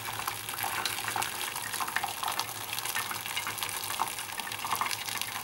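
Hot cooking water and boiled noodles poured from a pot into a stainless-steel colander, the water splashing and draining through the holes as a steady pour with small irregular spatters: draining the noodles.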